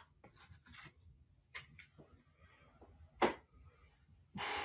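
Soft, scattered clicks and rubs of trading cards and foil card packs being handled on a table, with one sharper tap a little past three seconds in and a short rustle near the end.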